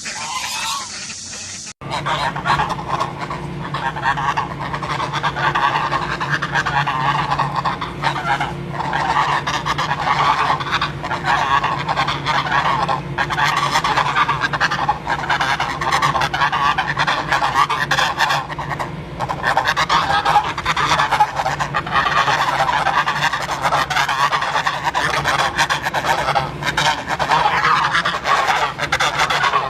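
Many geese honking at once, a dense, continuous clamour of overlapping calls. It starts abruptly about two seconds in, after a short, quieter stretch.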